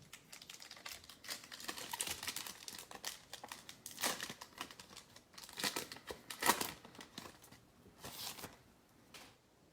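Trading card pack wrapper being torn open and crinkled by hand, in irregular crackles with a few louder rips.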